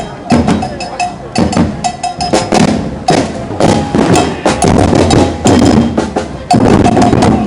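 Marching band drums beating, with snare and bass drum hits in an uneven, fast run.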